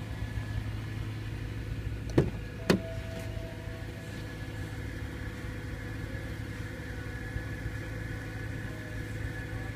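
BMW M3's S65 4.0-litre V8 with a BMW race exhaust idling steadily. About two seconds in, two sharp clicks half a second apart as the door is opened.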